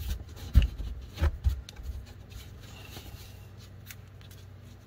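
A Mazda 2.5L engine's ribbed serpentine belt being worked off its pulley by hand while the tensioner is held back with a wrench: rubber rubbing and scraping, with a few dull knocks in the first two seconds, the loudest just over half a second in.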